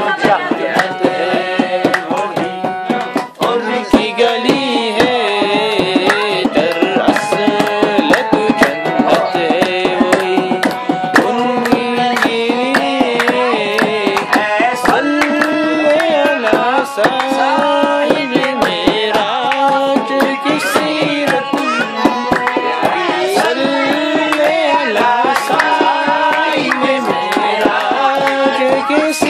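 Harmonium playing a qawwali melody over the steady hand-drummed rhythm of a dholak barrel drum, the drum strokes running thickly under the held and sliding reed notes.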